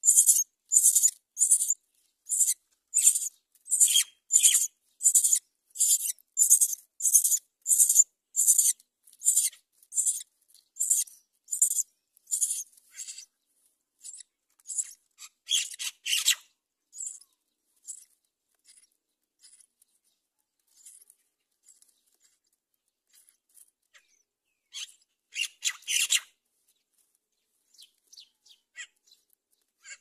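Myna nestlings' begging calls: short, very high-pitched calls about twice a second while a parent feeds them. About halfway through they thin out to occasional calls, with two brief louder bursts later on.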